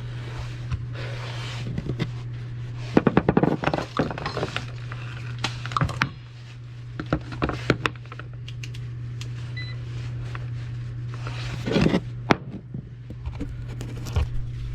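Knocking and clattering of tools and metal parts being handled while a furnace is worked on, in clusters a few seconds in and again about three-quarters through, over a steady low hum. A short faint beep sounds a little past halfway.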